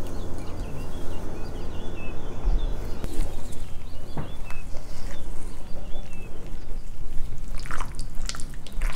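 Yogurt marinade stirred with a wire whisk in a glass bowl, then poured over diced raw chicken and worked in by gloved hands. The sound is wet sloshing and squelching, with a run of squishy squelches near the end.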